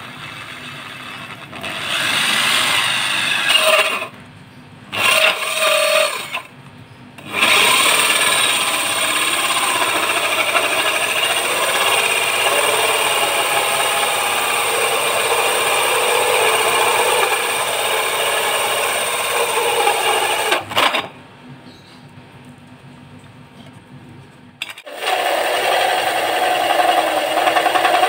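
A hole saw on a power drill cutting into a wooden board. It runs in several stints: two short bursts, then a long cut of about thirteen seconds, a pause of a few seconds, and cutting again near the end.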